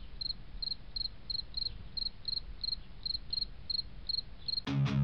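Cricket chirping in an even rhythm, about three chirps a second, over a faint low rumble. Music with plucked guitar comes in loudly near the end.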